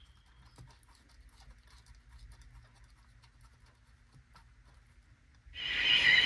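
Light clicks and taps from handling a small transistor radio. About five and a half seconds in, the Gran Prix eight-transistor AM/FM radio's little speaker cuts in loudly on the FM band, playing a broadcast.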